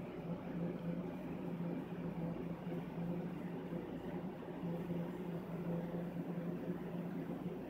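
Steady low mechanical hum with a hiss, like a running indoor appliance or fan motor.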